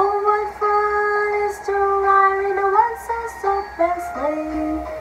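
A woman singing, holding long steady notes that step up and down in pitch.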